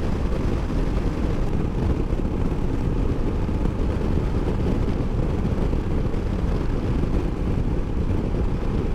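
Steady wind rush and road noise of a Honda Africa Twin motorcycle cruising at highway speed, with the engine's low drone underneath, heard from a camera mounted on the bike.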